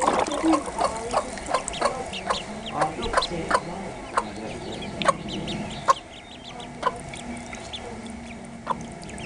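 A mother hen clucking over ducklings she hatched, with many short, sharp calls, busier in the first few seconds. The owner takes the clucking for concern as the ducklings swim.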